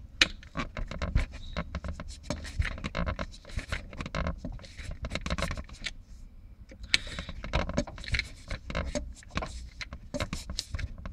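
Dense, irregular metallic clicking and scraping as the screws of a homemade plate puller are turned with a hex bit, drawing the A/C compressor clutch plate off its shaft. The small pops are the clutch plate creeping out as the gap to the pulley widens.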